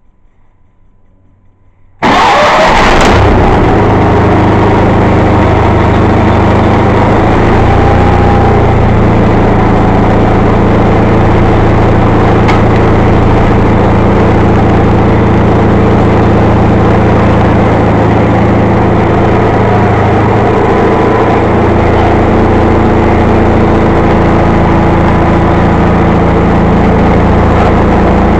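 John Deere 318 garden tractor's Onan two-cylinder air-cooled engine starting from cold after four days unused. It fires up suddenly about two seconds in, catching almost at once, then runs loud and steady.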